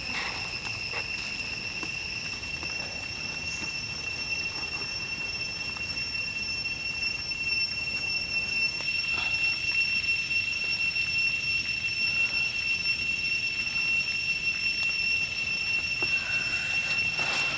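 Steady high-pitched insect whine, holding one pitch and growing louder about eight seconds in, with a few faint crackles from a wood campfire.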